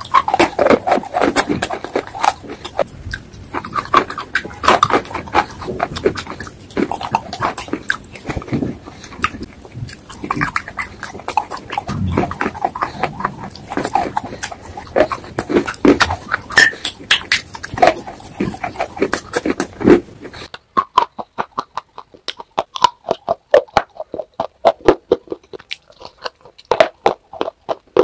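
Close-miked mouth sounds of creamy wet clay paste being eaten off the fingers: irregular wet squelching and smacking. About 20 seconds in it changes to sharp, separate crunches as dry slate-clay bars are bitten and chewed.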